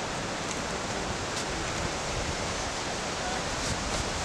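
Steady rushing outdoor noise, even and unpitched, with a few faint light knocks.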